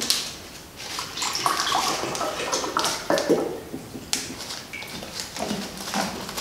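Crinkling and rustling of a snack packet of dried fish sticks as it is torn open and the sticks are pulled out: a run of irregular crackles.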